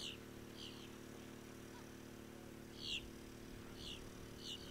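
A bird calling: about five short, high, falling notes at uneven intervals, over a faint steady low hum.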